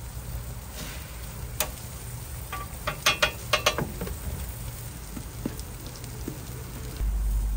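Food sizzling on a Korean street-toast stall's griddle, with a few sharp metal clicks and scrapes about three seconds in. A louder low rumble comes in near the end.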